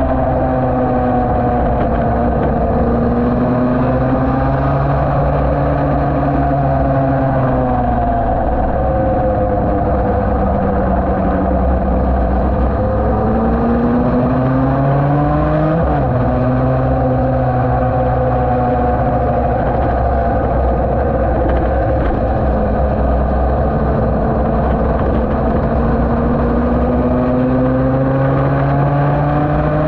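Yamaha TD1B's 250 cc two-stroke twin racing engine under way at speed. Its pitch falls and climbs with the throttle over several seconds at a time, dropping sharply at a gear change about sixteen seconds in and again at the very end.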